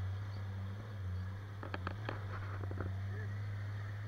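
Jeep engine running at low, steady revs as it crawls up a steep dirt and rock trail. A short cluster of sharp clicks and knocks comes about two seconds in.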